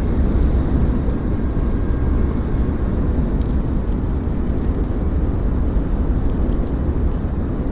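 Freight train rolling past, a steady low rumble with faint clicks, just after the horn stops.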